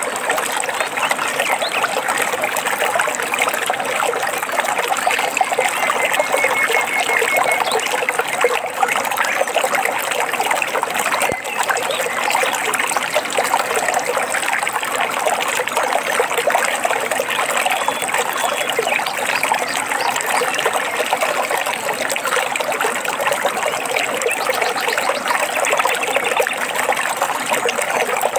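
A stream trickling and babbling over rocks, running steadily, with a faint short bird call or two now and then.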